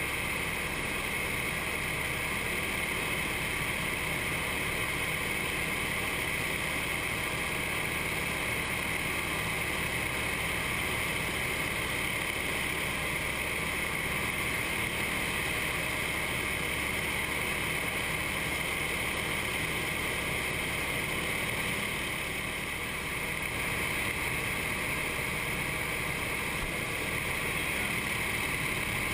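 Nine-cylinder radial engine and propeller of a formation trainer aircraft droning steadily in cruise, heard from inside the cockpit with wind rush over the canopy.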